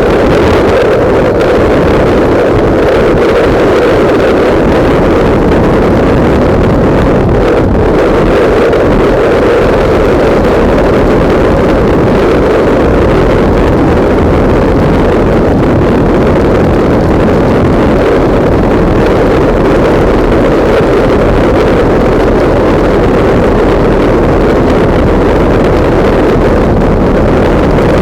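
Heavy, steady wind noise buffeting the microphone of a camera mounted on a moving motorcycle, with the bike's engine drone underneath.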